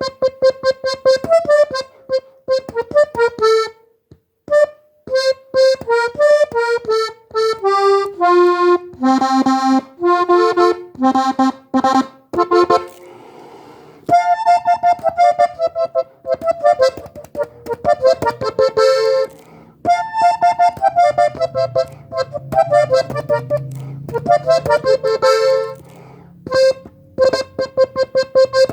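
Diatonic button accordion tuned in G playing a melody line of quick, separate notes that climb and fall. Low bass notes come in under it during the second half.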